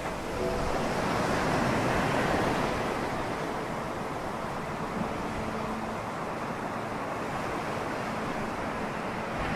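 Sea waves washing in at the shore: a rush of surf that swells about a second in, then eases to a steady wash.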